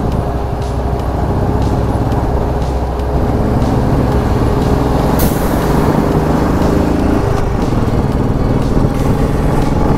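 Royal Enfield Classic 500's single-cylinder engine running steadily while riding, mixed with road and wind noise. A short hiss about five seconds in.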